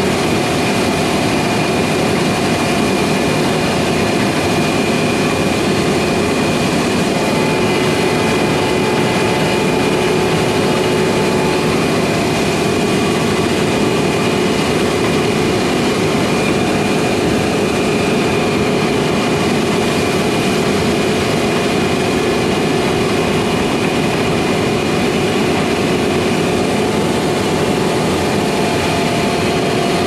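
Steady machine noise: a continuous hum with a couple of held whining tones, unchanging throughout.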